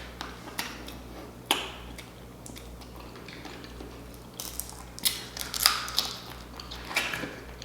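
Scattered clicks and crackles of snow crab clusters and seafood boil being handled, a few at first and more frequent in the second half, over a steady low hum.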